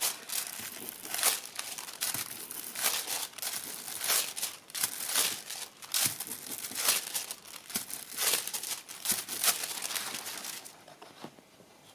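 Gold mirror transfer foil crinkling and rustling as it is pressed and rubbed down onto paper, in a run of irregular crackly scrunches that stop about a second before the end.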